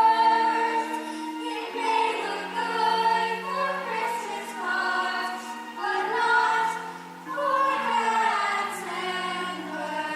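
Show-tune singing over an instrumental backing track, voices holding long notes above sustained chords.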